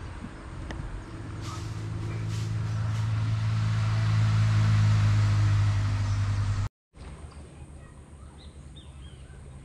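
A motor engine drones at a steady pitch, growing louder over several seconds as it draws nearer, then cuts off suddenly; faint bird chirps follow.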